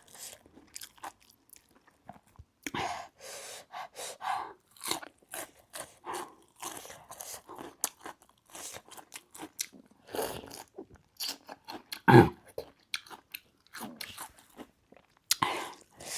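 Close-up crunching and chewing of a mouthful of gilo chatpate, a Nepali spicy puffed-rice snack, with a run of short crackles and one louder crunch about twelve seconds in.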